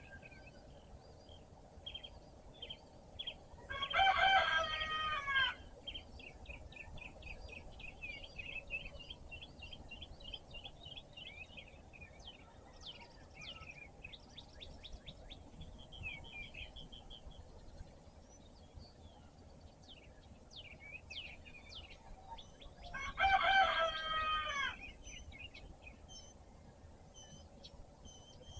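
A rooster crows twice, about 20 seconds apart, each crow about a second and a half long and the loudest sound here. Between the crows, small songbirds chirp and sing, including a quick run of repeated notes.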